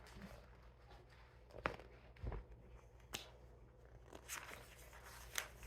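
Faint handling noise from a picture book: a few soft clicks and rustles as a page is turned, over a low steady hum.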